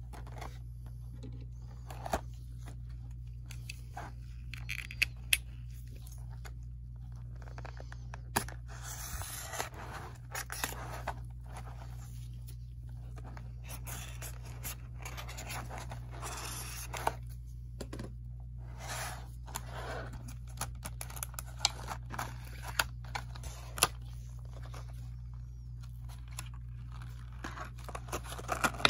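Utility knife slicing through a clear plastic blister pack, with irregular crackling, scraping and clicks of the stiff plastic being cut and handled. A steady low hum runs underneath.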